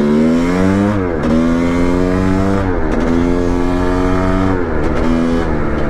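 1989 Honda CR500R's single-cylinder two-stroke engine running under throttle on the move, its pitch climbing and then dropping back three times as the throttle is rolled on and off.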